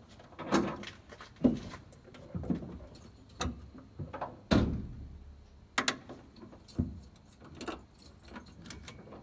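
A series of irregular knocks and clicks, roughly one a second, with quiet between them.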